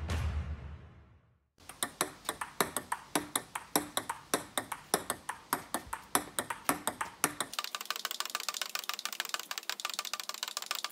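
Solo table tennis rally, with the ball played against the folded-up upright half of the table: sharp clicks of ball on bat and table, about four a second. About two-thirds of the way through, the clicks turn brighter and quicker. A brief low rumble comes before the rally starts.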